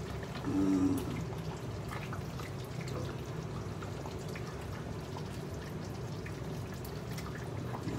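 A ladle stirring and scooping through a pot of tom yam soup with chicken and carrot pieces, the broth sloshing and dripping off the ladle, over a low steady hum. There is a brief louder low tone about half a second in.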